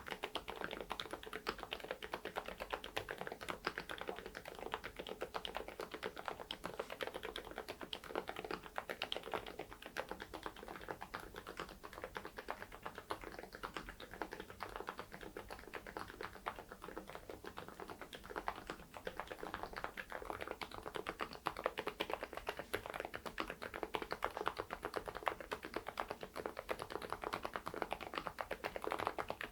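Mechanical keyboard with thick PBT cherry-profile keycaps being typed on in a fast, continuous stream of keystrokes.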